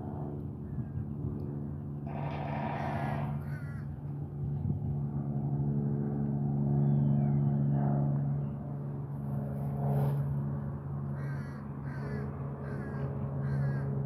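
Harsh bird calls: one long burst about two seconds in and a few short calls near the end, over a steady low hum.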